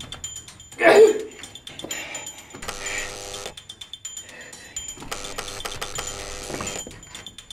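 A man grunting and moaning with strain as he wrenches at a door handle, with small clicks and rattles from the handle. The loudest grunt comes about a second in.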